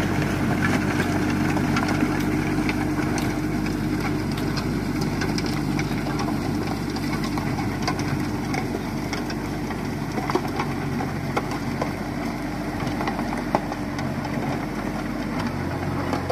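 New Holland Simba 30 mini tractor's diesel engine running steadily under load while puddling a flooded paddy with cage wheels and a rotary tiller, with water churning. It fades a little as the tractor pulls away, and a few sharp clicks come in the second half.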